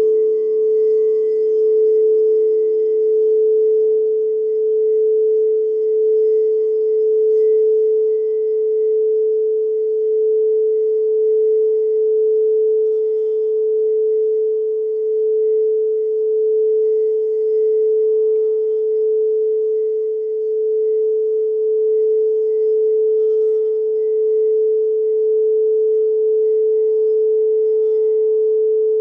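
Frosted quartz crystal singing bowls ringing: one bowl is played around its rim with a mallet, holding a single steady tone that swells and eases slightly, while two lower bowl tones die away over the first ten seconds or so.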